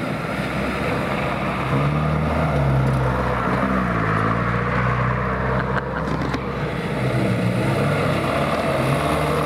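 Off-road vehicle engine running while driving, its pitch dipping and rising as the revs change, over a steady rush of driving noise.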